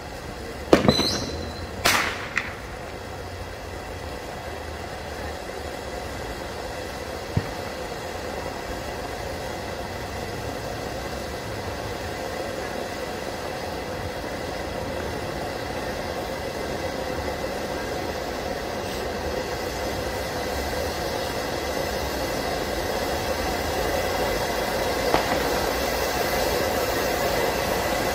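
Swiss Vulkan ground fountain firework burning with a steady hissing rush that slowly grows louder as the spark jet rises higher. Two sharp cracks about one and two seconds in, the first with a brief whistle, and a small pop near the end.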